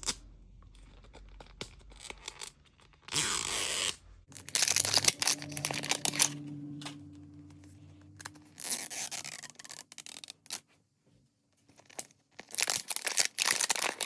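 Gift packaging being torn open by hand, in about four separate rips and tugs with short pauses between.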